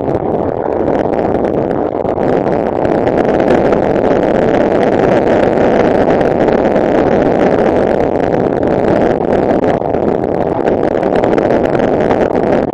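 Honda NTV600 V-twin motorcycle engine running at steady road speed, mixed with a steady rush of wind, heard muffled through a handlebar-mounted action camera in its case. The engine is recently rebuilt.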